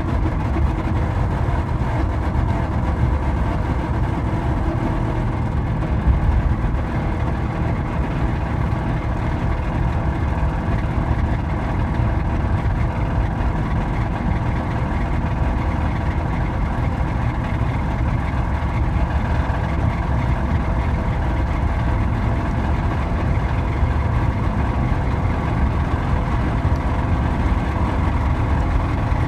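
Mazda engine running steadily with a rod knock, the sign of a failing connecting-rod bearing.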